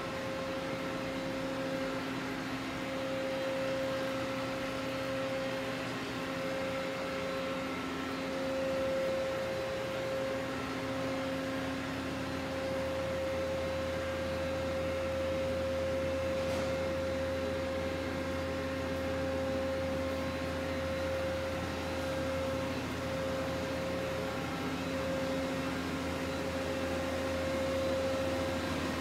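Mori Seiki SL-65B CNC lathe powered up and idling: a steady machine hum with a held tone over it.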